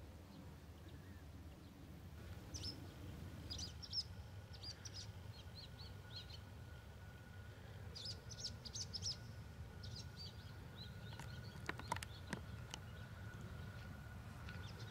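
Small birds chirping in short clusters of high calls over a faint low rumble, with a faint steady high tone; a few sharp clicks sound about twelve seconds in.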